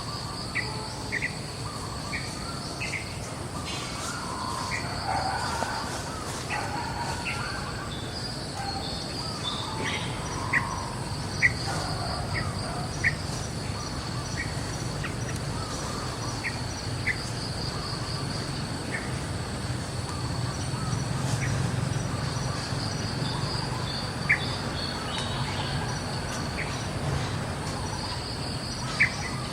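Natural outdoor ambience of insects trilling in a steady, pulsing high buzz, with short sharp bird-like chirps about once a second and a low rumble underneath.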